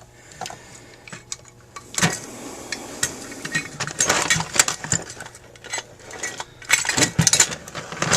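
Small metal carburetor parts and hand tools clicking and clinking during disassembly of a Carter AFB four-barrel carburetor, with two busier clusters of clatter about four seconds in and near the end.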